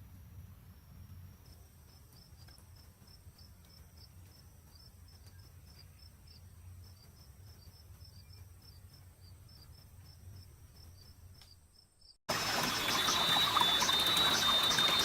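Faint insects chirping in a steady, regular pulse over a quiet background. About twelve seconds in it cuts abruptly to a much louder hiss with a steady high whine.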